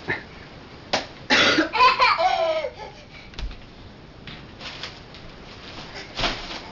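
A young child's voice: a loud laughing squeal, rising then falling in pitch, lasting about a second and a half. It is set among a few short, sharp noises and a shorter vocal burst near the end.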